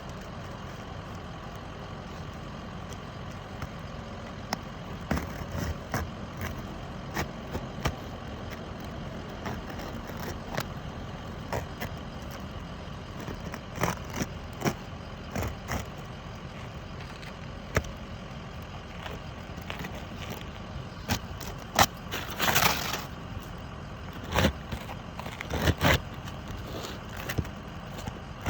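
Irregular knocks and taps of hand work on an asphalt-shingle roof during a box-vent install, over a steady background hum; the loudest knocks come in a cluster about two-thirds of the way through.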